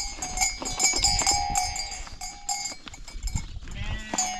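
Neck bells on a herd of livestock clinking and clanking over and over, many bells at once, as the animals move.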